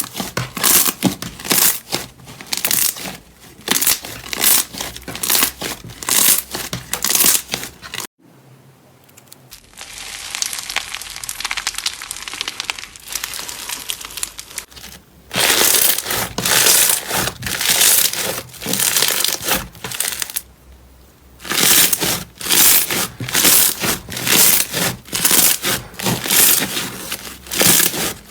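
Slime being squished and pressed, making crackling, crinkling squishes about twice a second. About a third of the way in, the sound cuts suddenly to a softer, steadier hiss for several seconds before the squishing starts again.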